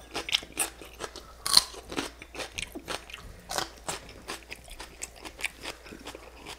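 Close-miked chewing of a raw celery stick dipped in a creamy dip: irregular crisp crunches, several a second, a few of them louder.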